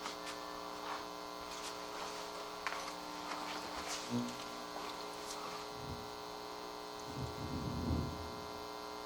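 Steady electrical mains hum from the mixer's audio chain, with a few faint scattered clicks and a short low rumble toward the end.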